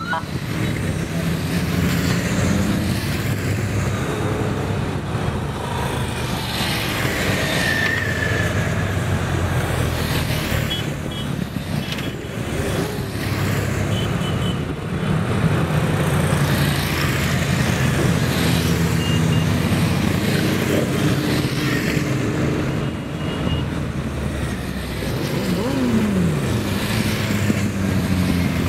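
Engines of a convoy of motor vehicles running steadily as it moves along, with voices in the background.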